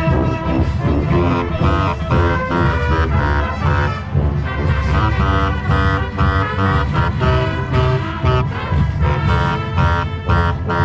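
Marching band playing its field show: brass and woodwinds over drums, in a loud, busy passage.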